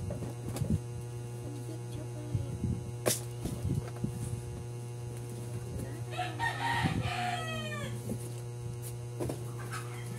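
A rooster crows once, about six seconds in, over a steady low hum. Light knocks and plastic rustles of packaged goods being lifted from a cardboard box come and go.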